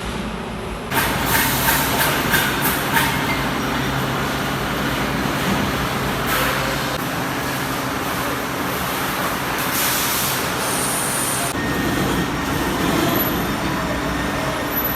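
Heavy machinery running with a steady rumble and hum, with a quick series of sharp metallic clanks starting about a second in.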